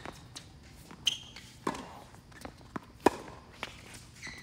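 Doubles tennis rally on a hard court: several sharp pops of rackets striking the ball and the ball bouncing on the court, the loudest about three seconds in.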